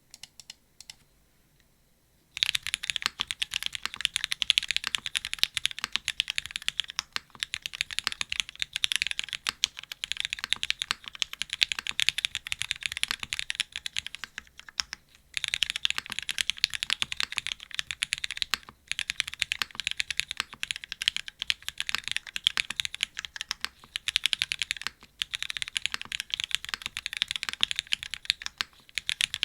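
Fast, continuous typing on a Machina Cloudnine custom mechanical keyboard with Cherry MX Black linear switches, an aluminium plate and GMK keycaps. A couple of light keystrokes come first, then steady rapid typing starts about two seconds in, broken by a few short pauses.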